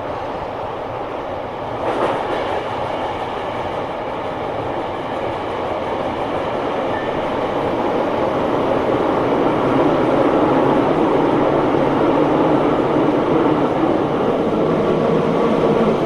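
Running noise of a Tobu 9000 series armature-chopper electric train, growing steadily louder as it goes, with a single knock about two seconds in.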